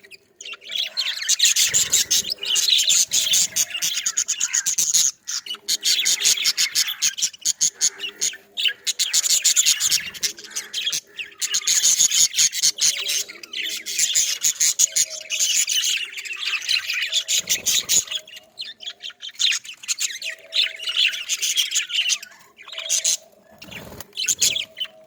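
Budgerigars chattering and chirping, a dense run of fast, high chirps that breaks off briefly every few seconds.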